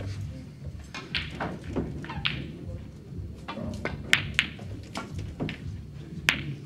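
Snooker balls: a sharp click of the cue striking the cue ball a little past halfway, then a louder click of the cue ball hitting an object ball near the end. Quiet voices can be heard between the clicks.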